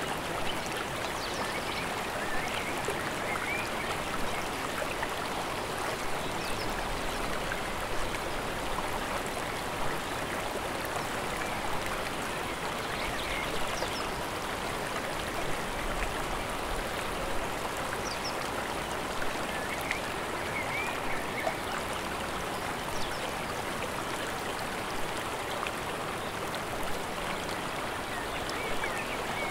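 A mountain stream and waterfall making a steady, even rush of running water, with faint high chirps now and then.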